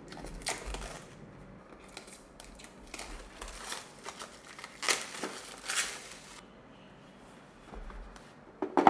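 Packaging being torn open: plastic wrap on a small cardboard box crinkling and ripping in short rasps, the sharpest about five and six seconds in.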